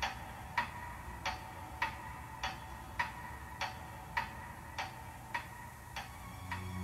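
A steady, even ticking at a little under two ticks a second. Near the end a low sustained music tone comes in.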